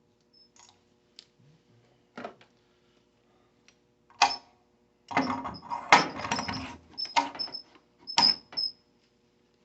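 Metal tools and parts being handled: scattered sharp clicks and knocks, with a few seconds of rattling metal-on-metal clatter a little past halfway.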